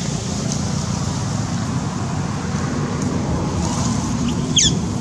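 A steady low hum, like a motor running, throughout. About four and a half seconds in comes one brief high squeak that sweeps quickly down in pitch.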